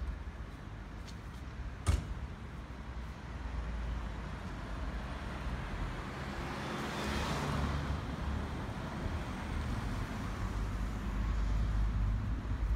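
A car passing by on the street, its noise swelling and fading about halfway through, over a steady low rumble of traffic. A single sharp click about two seconds in.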